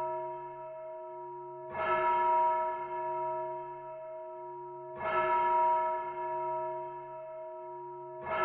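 A single church bell tolling, struck at an even pace of roughly one stroke every three seconds. Each stroke has the same pitch and rings on with a long hum that lasts until the next strike. Two full strokes fall in the middle, and another lands right at the end.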